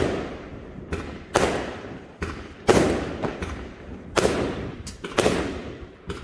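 Aerial fireworks bursting overhead: a series of loud sharp bangs about a second apart, with smaller pops in between, each bang trailing off in a fading tail of sound.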